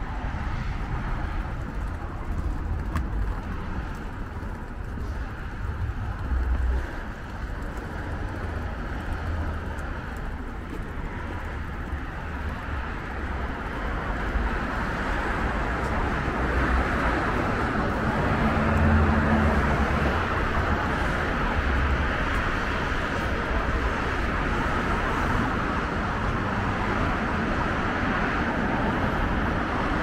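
Outdoor city street ambience: steady traffic noise with a low rumble, growing louder about halfway through, with a vehicle's engine hum passing about two-thirds in.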